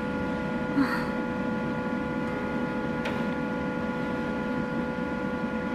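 Steady hum inside a parked camper van, with a short faint sound about a second in and a brief knock about three seconds in. The knocking on the van is one she puts down to strong wind outside.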